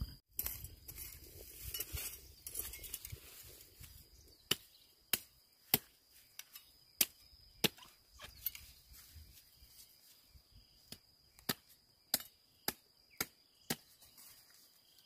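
Knife chopping bamboo shoots into slices: about a dozen sharp chops, one every half second to a second, starting around four seconds in.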